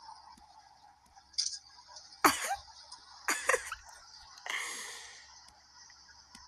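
A person's coughing and wheezing: a sharp burst a little over two seconds in, two more about a second later, then a longer breathy one that fades away.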